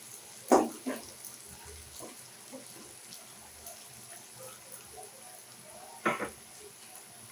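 Wooden spatula stirring and scraping onions, chillies and garlic in a non-stick wok: a few short scrapes just after the start and near one second, another about six seconds in, over a faint background.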